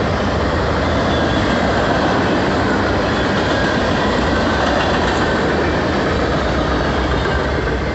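Freight cars of a manifest train rolling past: a steady, loud rumble and rattle of steel wheels on the rails.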